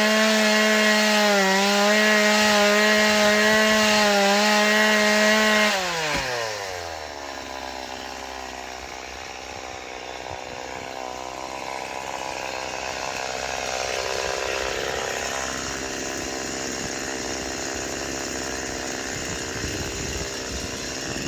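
Stihl MS 180 two-stroke chainsaw engine held at full throttle for about six seconds, then dropping back to idle and idling steadily for the rest.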